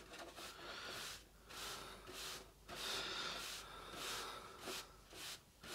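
A large decorator's brush sweeping over a static-grass-flocked plastic hill in repeated soft swishes, about one a second, brushing off the loose excess grass once the glue has dried.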